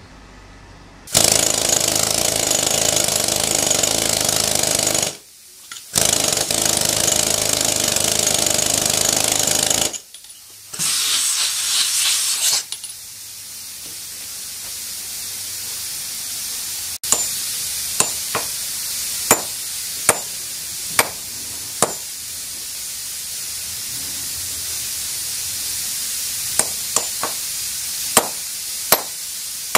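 Pneumatic rock drill running in three loud runs of a few seconds each, stopping briefly between them. Then a hand hammer striking steel wedges (plug and feathers) set in drilled holes in a granite block to split it: sharp ringing strikes, about one a second, in two series.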